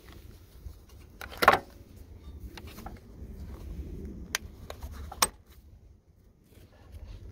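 Plastic air filter box clips and lid of a Nissan Rogue being worked by hand: a loud clatter of plastic snaps about one and a half seconds in, then two single sharp clicks about a second apart, over a low rumble.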